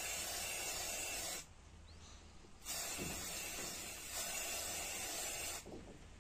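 Aerosol spray-paint can spraying in two hissing bursts: the first stops about a second and a half in, and the second runs from about two and a half seconds to nearly six.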